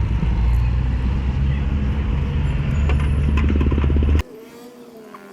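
A motor vehicle engine running steadily with a low hum, with a few clicks near the end; it cuts off abruptly about four seconds in, leaving a much quieter background.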